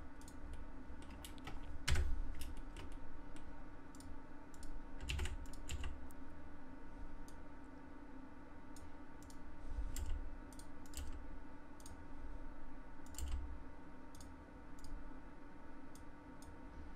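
Computer keyboard keys and mouse clicking at irregular intervals as Blender shortcuts are pressed and vertices are selected, over a faint steady hum.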